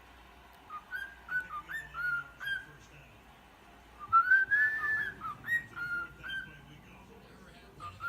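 Male cockatiel singing its whistled song: two phrases of short, chirpy whistled notes with a pause between them, the second phrase louder.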